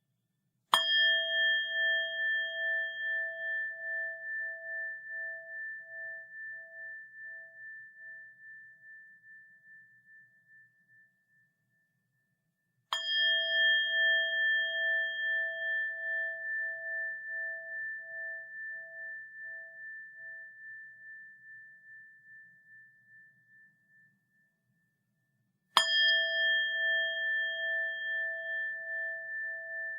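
A small Japanese bell (鈴) struck three times, about 12 seconds apart, each strike ringing on in a clear multi-tone note that fades slowly over some ten seconds with a steady pulsing wobble.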